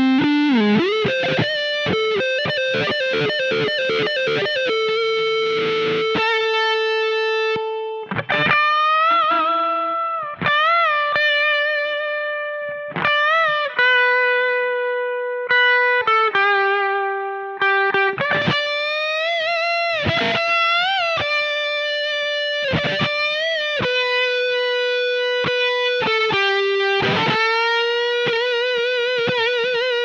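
Electric guitar through an Electro-Harmonix Nano Big Muff Pi fuzz pedal playing a lead riff: quick picked notes at first, then long sustained single notes with bends and vibrato.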